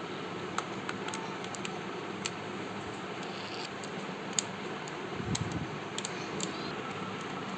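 A handful of light, sharp clicks and taps, as of laptop parts being handled, over a steady background hiss.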